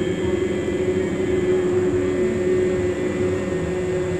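A group of voices chanting the Andean Quechua word 'munay' together as one long held note. Several pitches sound at once as a steady drone.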